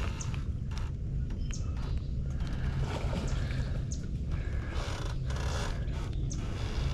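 Steady low rumble of wind on the microphone, with a few short high bird chirps scattered through.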